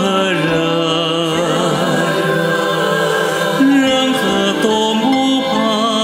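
Song with sung vocals over instrumental accompaniment, the voices holding long, slightly wavering notes.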